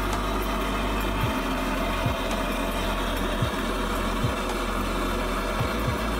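Hand-held gas torch running steadily with a continuous rushing noise over a low hum, broken by a few faint short knocks.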